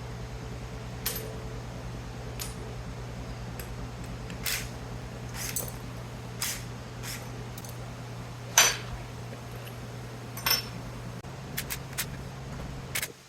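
Loose metal pieces from a dismantled electrical panel clinking and clanking as they are handled and set down. The clinks are sharp and irregular, with the loudest one about eight and a half seconds in, over a steady low hum.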